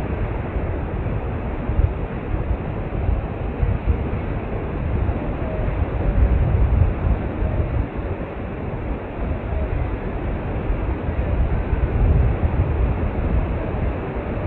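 Wind noise from airflow rushing over the microphone of a paraglider pilot's camera in flight: a deep, uneven rush that swells and eases.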